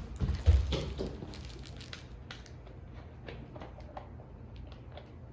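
Faint handling noises: a dull thump about half a second in, then soft rustling and scattered light clicks.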